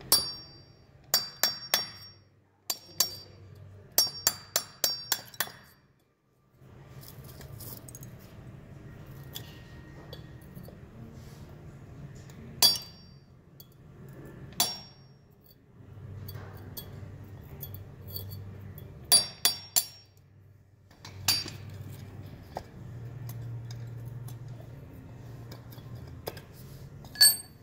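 Hammer striking a steel chisel held against a plaster-invested aluminum casting, breaking the plaster mold away: sharp metallic taps with a short high ring, some in quick runs of several blows and some single.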